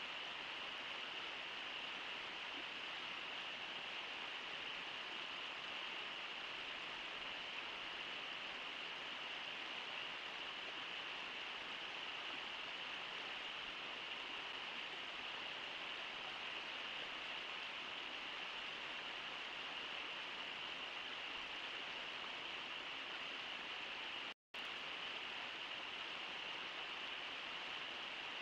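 Steady rushing of river water, an even wash of noise with no splashes standing out; the sound cuts out completely for an instant near the end.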